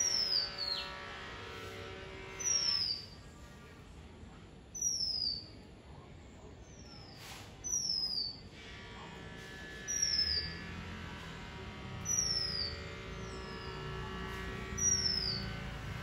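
Oriental magpie robin calling: a short, high, falling whistle repeated seven times, about every two to three seconds. A low rumble sets in over the second half.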